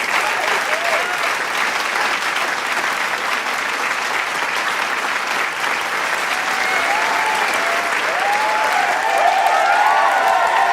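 Large crowd applauding with dense, steady clapping. Scattered cheers and shouts ride over it, growing more frequent and a little louder in the last few seconds.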